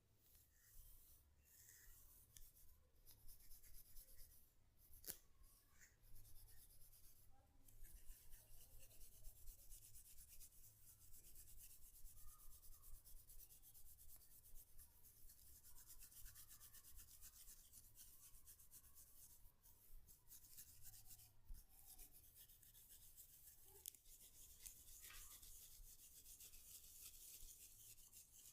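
Faint, fast scratchy rubbing on hair and scalp from a head massage, with a sharp click about five seconds in.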